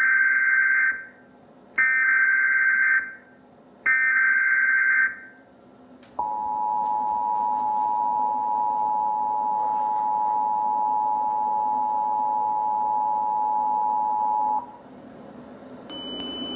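Emergency Alert System tones announcing a tornado warning: three bursts of about a second each of SAME header data tones, then the steady two-tone EAS attention signal held for about eight seconds.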